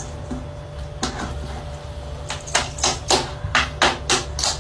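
A cat pawing repeatedly into a plastic basin: a quick series of about ten short scuffing strokes, coming faster in the second half, over a steady low hum.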